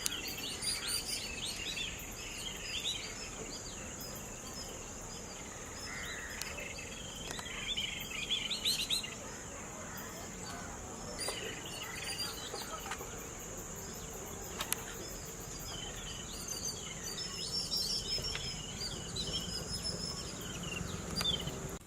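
Birds chirping in short bursts over a steady high-pitched insect drone.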